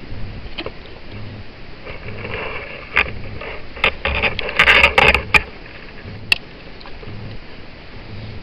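Galvanised fencing wire and steel hand tools clicking and scraping as a wire hitch is worked tight around a timber post: a few single sharp clicks, a dense run of clicks and scraping about five seconds in, and one last click near the end.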